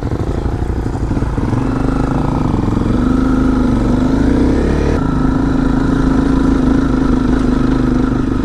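Honda CRF250L's single-cylinder four-stroke engine with a modified exhaust, heard from on the bike as it pulls away and accelerates, rising in pitch over the first few seconds, then running at a steady pitch while riding.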